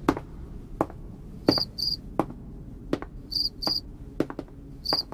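Dubbed-in cricket chirping: short high chirps in quick pairs, repeating about every second and a half. Sharp knocks about every 0.7 seconds are the loudest sounds, over a low hum.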